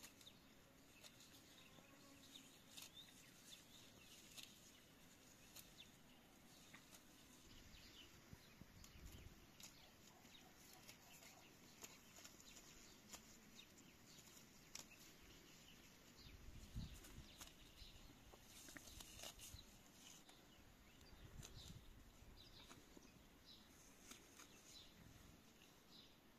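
Near silence: faint background with scattered soft clicks and a couple of brief low rumbles.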